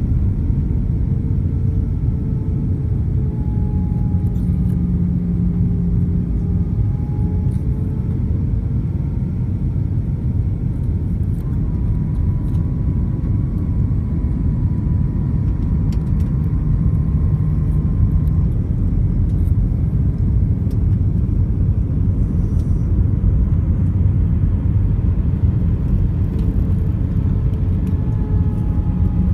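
Airliner cabin noise on approach to landing: a steady low rumble of jet engine drone and airflow past the fuselage, with faint wavering engine tones.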